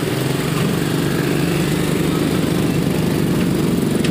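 A small motorcycle engine running steadily at low speed, amid the engine noise of other motorcycles and trucks in slow traffic.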